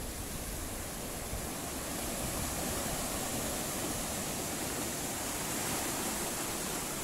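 Sea surf washing over and around rocks along the shore: a steady rushing noise.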